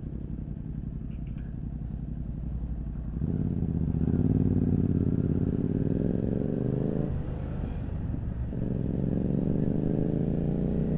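Motorcycle engine running at low revs, then pulling away about three seconds in with rising revs. It shifts up about seven seconds in and climbs through the next gear.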